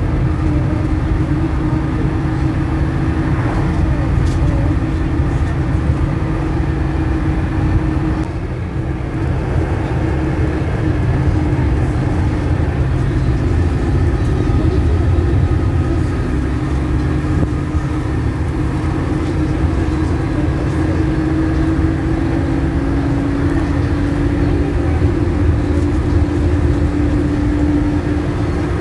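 Cabin noise inside a moving route minibus (marshrutka): a steady engine drone with a hum that drifts slightly in pitch, over the low rumble of tyres on the road.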